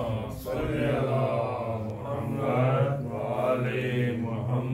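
A man chanting a manqabat, a devotional praise poem, in long drawn-out melodic phrases that rise and fall.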